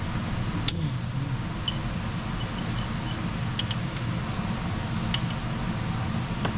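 Steady low background hum, like a fan or air handler running, with a few faint light clicks scattered through it.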